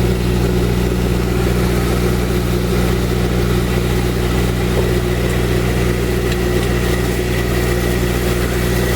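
Marine air conditioner's raw water pump running steadily with all the air burped out, a constant hum made of several held low tones and a faint higher whine.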